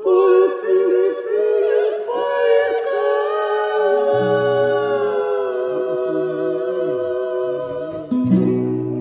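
Young men singing a Tongan faikava song in long held notes, accompanied by acoustic guitars.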